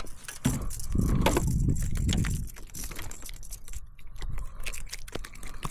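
Handling noise from a kayak angler dealing with a just-caught fish: irregular clicks, rattles and knocks over a low rumble.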